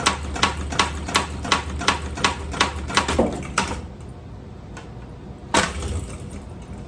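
Rapid, evenly spaced mechanical clicking, about three clicks a second, over a low motor hum; both stop about four seconds in. A single sharp knock follows about a second and a half later.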